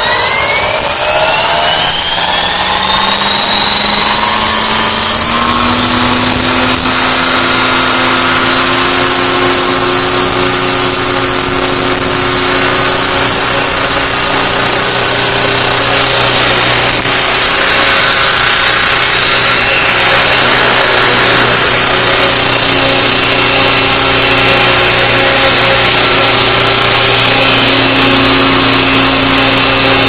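Electric T-Rex 600 ESP RC helicopter spooling up: the motor and gear whine rises in pitch over the first five seconds or so, then holds steady at hover speed. It is loud, with the rotor blades beating the air as it lifts off and hovers.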